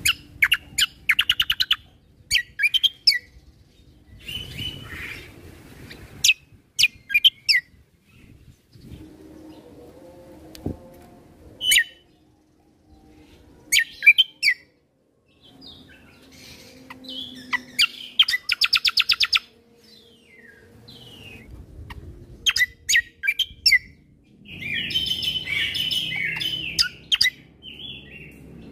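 Kecial kombo (cucak kombo) songbird singing in a vigorous, varied song: short phrases of sharp, high chirps and rapid trills with brief pauses between, and a dense, chattering phrase near the end.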